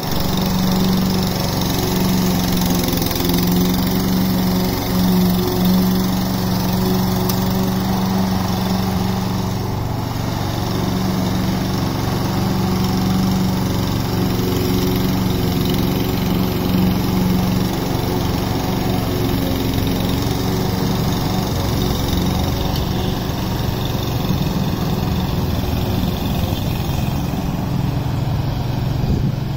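Husqvarna petrol walk-behind lawn mower engine running steadily at a constant speed while the mower cuts long, thick grass.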